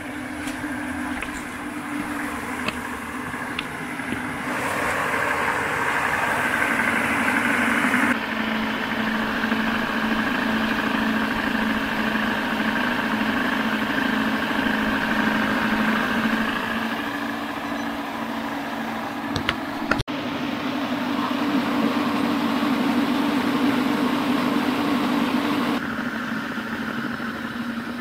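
Pelton-wheel micro-hydro turbine and its rewired Smart Drive washing-machine motor generator running: a steady hum under the hiss of the water jet and the flowing stream. The balance of hum and water shifts at a couple of cuts.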